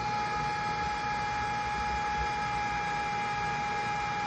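Small electric fan running steadily, a constant whine of several fixed tones over a rush of air.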